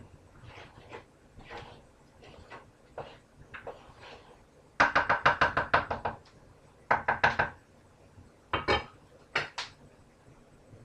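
A kitchen utensil clattering rapidly against a pot or bowl, about eight strikes a second for a second and a half. A shorter run follows, then a few single knocks near the end.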